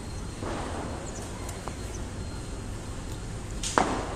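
A single sharp knock near the end, over a low steady background rumble.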